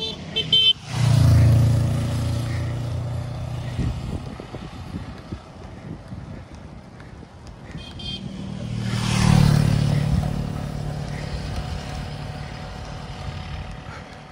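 Two motor vehicles pass on a mountain highway, each sounding a short horn toot just before it passes. The engine drone swells loudly and then fades away, the first pass about a second in and the second about nine seconds in.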